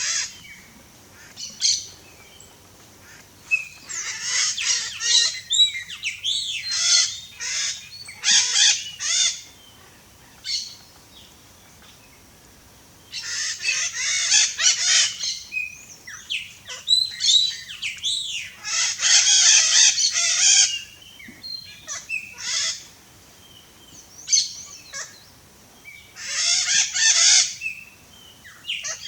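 Red-shouldered macaw (Diopsittaca nobilis) calling: harsh, scratchy squawks in bursts of one to two seconds, repeated several times with quiet gaps between.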